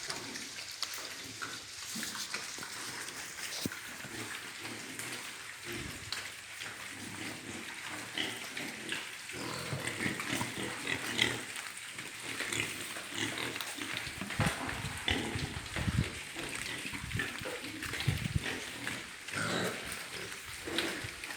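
Pigs grunting, with many short, irregular calls and knocks over a steady background hiss.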